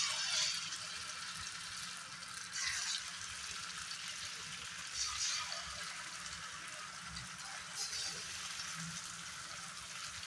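Spice- and batter-coated fish steaks frying in hot mustard oil in a pan, a steady sizzle that flares up louder four times, every two to three seconds, as more pieces go into the oil.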